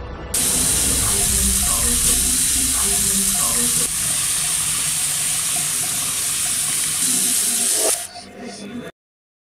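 Water running hard from a bathroom tap, a steady rushing hiss that starts suddenly and stops about eight seconds in as the tap is turned off.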